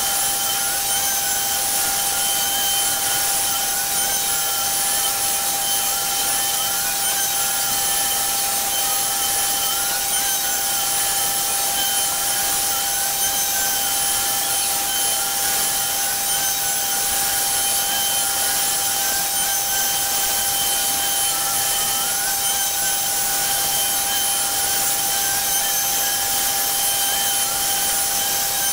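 CNC Shark router spindle running at high speed with a steady whine while its small bit carves a pocket in a wooden door panel. A second, wavering tone sits above the main whine.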